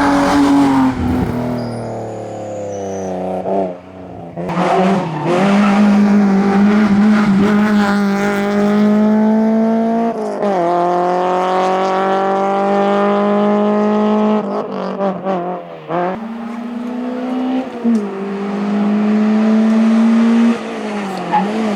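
Racing car engine pulling hard under full throttle, its pitch climbing steadily and then dropping sharply at each gear change or lift, several times over.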